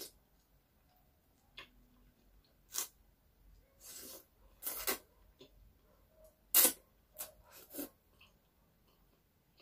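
Close-miked slurping of carbonara noodles: a series of short, sharp sucking slurps, the loudest about two-thirds of the way through.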